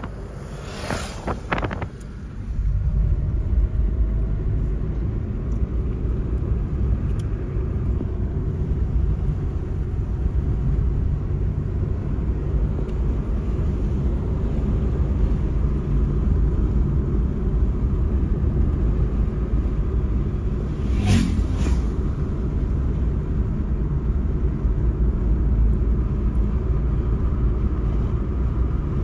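Steady low road-and-engine rumble of a vehicle driving along a paved road, heard from on board. There is gusty noise in the first two seconds. A short, sharp double sound comes about three-quarters of the way through.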